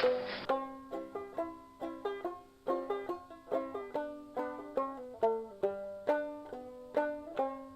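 Background banjo music: a plucked tune with notes picked in quick succession, each ringing and fading. A loud hiss cuts off about half a second in.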